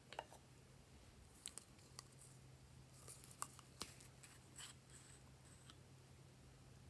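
Glossy slime being handled and mixed: faint, scattered sticky clicks and small pops, about a dozen over several seconds.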